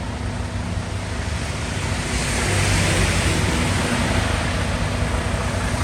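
Road traffic going by: a vehicle's engine hum and tyre noise, swelling about two seconds in and staying up.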